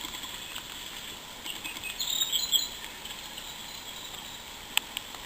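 Outdoor ambience: a steady hiss with a brief flurry of high chirps about two seconds in and a single sharp click near the end.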